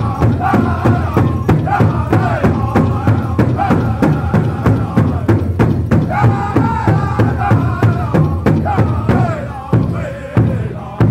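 Powwow drum group singing in chorus while several drummers strike one big rawhide drum together in a fast, steady beat. Near the end the singing stops and the drum slows to a few single, spaced strikes.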